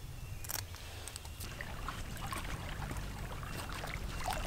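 Small waves lapping and splashing at the water's edge, with a steady low rumble of wind on the microphone and a single sharp click about half a second in.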